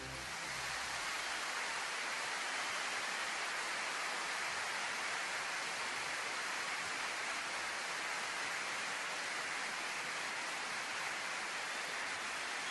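Steady, even hiss with no tones, voices or knocks in it.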